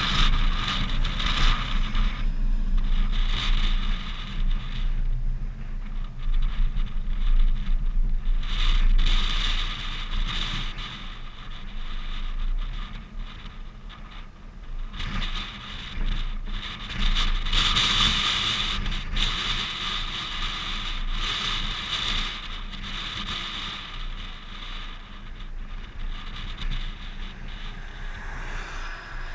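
Wind buffeting a hood-mounted camera's microphone in uneven gusts that swell and fade, over a steady low rumble.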